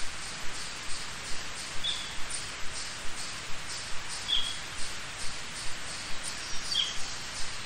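Forest ambience over a steady stream rush: a short, high bird chirp repeats about every two and a half seconds, and a fainter high ticking pulse comes two to three times a second.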